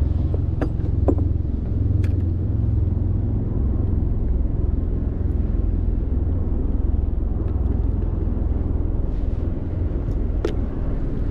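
Steady low rumble of wind buffeting an outdoor microphone, with a few sharp clicks from handling near the start and one near the end.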